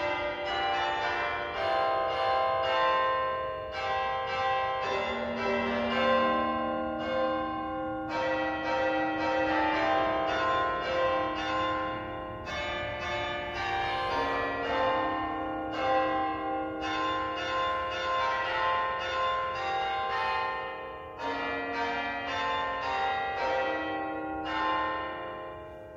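Church bells ringing, rapid struck tones that ring on and overlap in runs of a few seconds each, fading out near the end.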